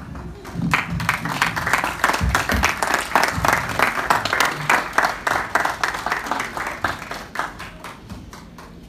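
A room of guests applauding, with many people clapping at once. It starts just under a second in and dies away near the end.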